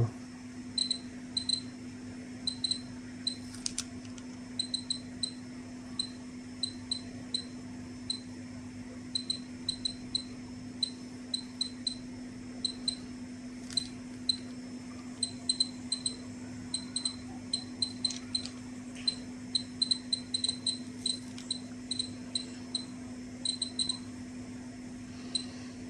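Ecotest MKS-07 dosimeter giving short high beeps at irregular, random intervals, one for each particle its Geiger tube registers, with the tube now wired with correct polarity. The beeps come more often in the second half, over a faint steady hum.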